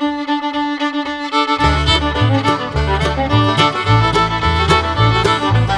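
Background music: a fiddle-led tune, with a bass line coming in about a second and a half in.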